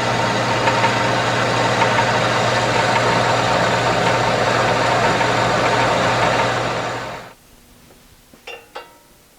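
Milling machine running with a steady motor hum and cutting noise, then switched off and dying away about seven seconds in. A few light clicks and knocks follow as the workpiece is handled.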